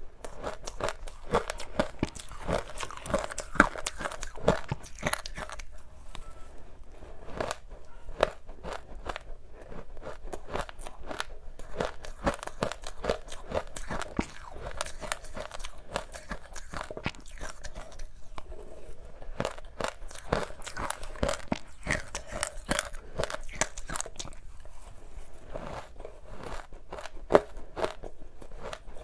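Close-miked biting and chewing of powdered freezer ice dusted with matcha powder: dense, irregular soft crunching throughout.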